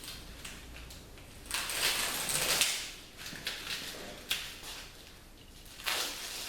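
Duct tape being peeled off a window screen frame: a noisy rip of about a second and a half, a few small clicks and knocks, then a shorter rip near the end.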